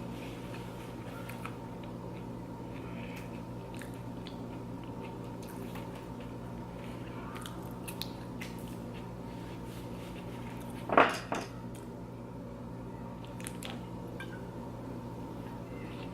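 Crunching and chewing of loaded nachos, with scattered small clicks of cutlery or dishes, over a steady low electrical hum. About eleven seconds in comes a short sound much louder than the rest, followed at once by a smaller one.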